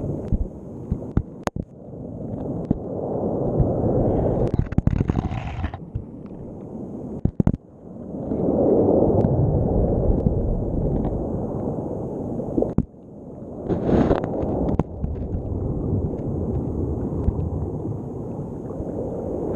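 Muffled underwater rumble of surging sea water heard through a GoPro's waterproof housing, rising and falling in surges, with sharp knocks and scrapes as the camera drags along the seabed.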